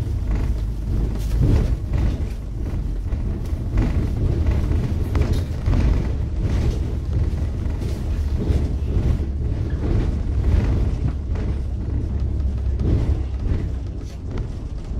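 Double-decker bus on the move, heard from its upper deck: a steady low engine and road rumble with irregular thumps and rattles.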